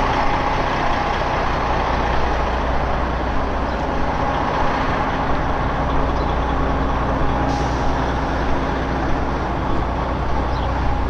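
Semi-truck diesel engine running steadily close by, a constant low drone with a steady hum.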